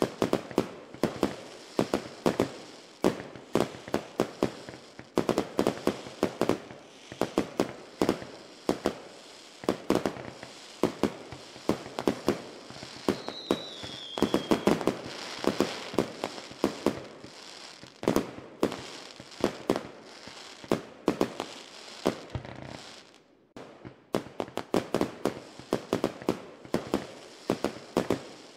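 Fireworks going off in a dense, continuous run of sharp bangs and pops, several a second, with a short falling whistle about halfway through. The popping eases briefly a few seconds before the end, then picks up again.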